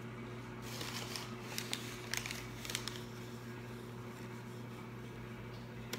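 A cardboard box of cornstarch being handled, with light rustling and a few sharp taps about one to three seconds in and one more tap near the end, over a steady low hum.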